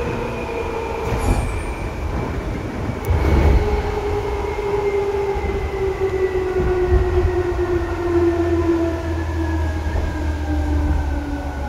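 Seibu 2000 series electric train heard from inside the car, above the line breaker: the traction motor and gear whine falls steadily in pitch as the train slows, over a low running rumble. A sharp click comes about three seconds in.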